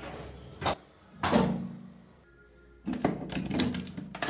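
A few knocks and thuds, then a quick run of clicks and rattles, over quiet background music.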